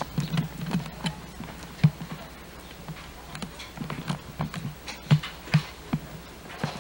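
Footsteps on hard ground, an irregular run of light knocks and clicks, several a second.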